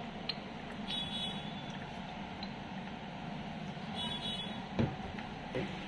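Steady road-traffic hum with a few brief high beeps and a single knock near the end.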